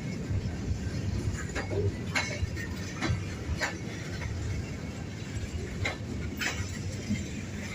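Steady low rumble of a train, with a few sharp metallic clinks scattered through it.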